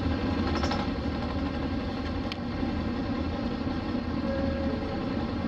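Hino Blue Ribbon RC monocoque bus's diesel engine running steadily, with one sharp click about two seconds in.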